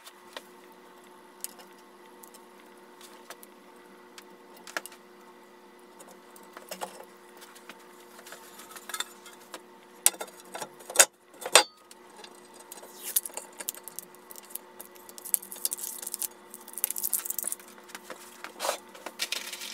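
Small clicks and taps of a glass tabletop being lowered and settled onto a metal desk frame fitted with stick-on bumpers, the sharpest clicks about halfway through, then a rustle of handling.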